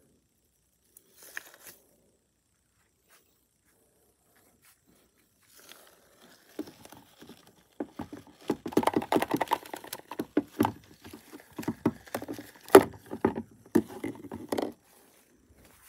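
Plastic sand toys rattling, knocking and scraping against a plastic bucket as they are handled, a dense run of clicks from about six seconds in, with one sharp knock louder than the rest near the end.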